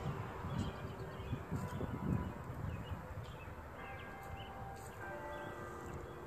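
Faint outdoor background noise: an uneven low rumble with a few faint, short high notes.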